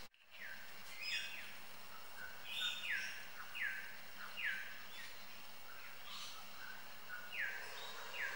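Bush stone-curlews giving a run of short scolding calls, each note sliding down in pitch, repeated every half second to a second with a lull in the middle: alarm at an animal close to their hidden chick.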